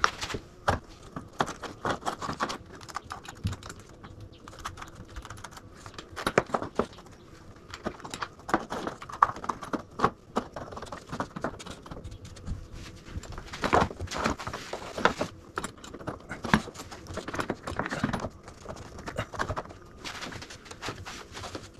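A roof-rack mounting bracket being worked by hand up into a Jeep Gladiator hardtop's roof rail during test fitting: irregular clicks, taps and light rattles, coming in small clusters.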